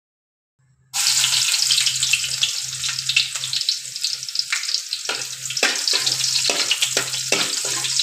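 Chopped garlic sizzling in hot oil in a steel wok. The sizzle starts suddenly about a second in, as the garlic hits the oil. From about five seconds in, a spatula taps and scrapes against the wok as the garlic is stirred.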